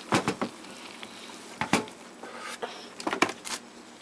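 Electric tea kettle boiling with vegetables steaming inside: a steady hiss, broken by several sharp clicks and knocks, a cluster near the start and another about three seconds in.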